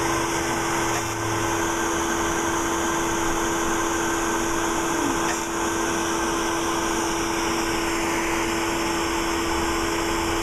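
Steady whirring hum of fractional laser treatment equipment running, a constant low tone under an even hiss, from the machine's fans and the air hose held at the patient's face.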